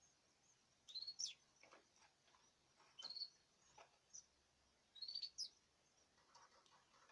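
A small caged bird chirping faintly: four short, high call notes about two seconds apart, each with a quick downward sweep.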